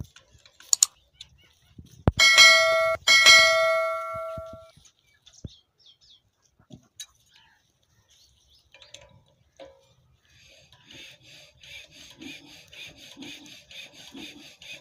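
Subscribe-button sound effect: mouse clicks, then a bell ringing twice about a second apart. From about ten seconds in, a soft, rhythmic rasping scrape.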